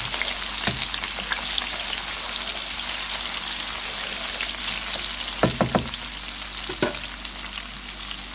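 Sliced onions sizzling steadily in hot palm and vegetable oil in a pan while being stirred with a wooden spoon. The spoon knocks against the pan a few times past the middle.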